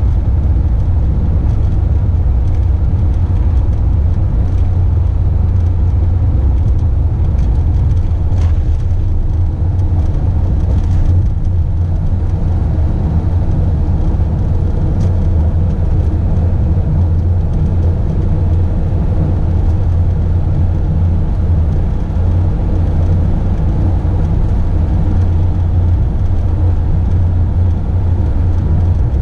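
Motorhome driving at a steady speed, heard from inside the cab: a constant low drone of engine and tyres on the road.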